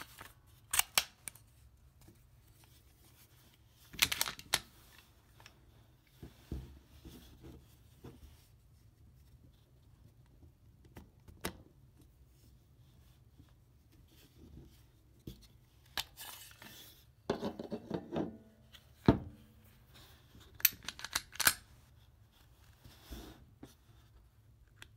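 Sharp clicks, snaps and short sliding rattles of a Smith & Wesson M&P Shield 9mm pistol being handled for field-stripping: the magazine worked in the grip and the slide and its controls moved by hand. The clicks come singly and in small clusters, with a longer rattle a little past halfway and a loud click soon after.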